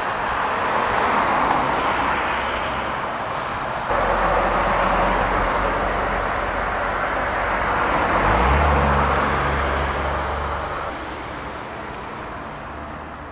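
Road traffic: vehicles passing close by one after another, their tyre noise swelling and fading. One passes with a low engine hum about eight seconds in.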